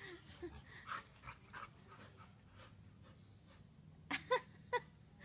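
Two dogs at play, giving soft whines and short yips, with three louder short yelps about four seconds in.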